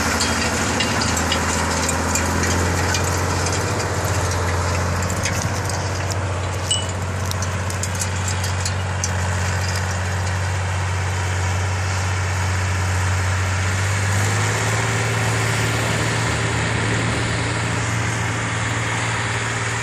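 Tractor diesel engine running steadily, its low note stepping up in pitch about two-thirds of the way through.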